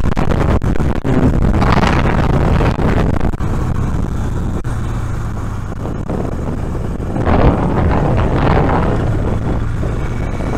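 Motorcycle on the move: a steady, bassy rumble of engine and wind picked up by a microphone inside a closed helmet, swelling louder about two seconds in and again from about seven seconds.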